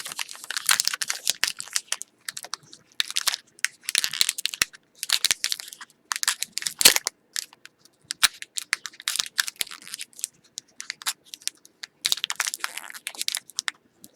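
Trading-card pack wrapper being crinkled and torn open by hand, in repeated rustling bursts with short pauses between them, as the pack resists opening.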